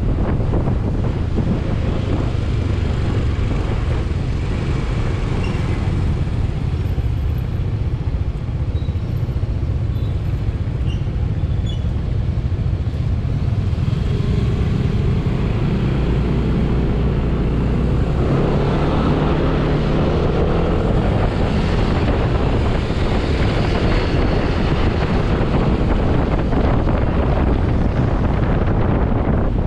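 Motorcycle riding through town traffic: its engine running under a steady rush of wind on a GoPro's microphone. From about halfway the engine and traffic noise grow fuller and louder.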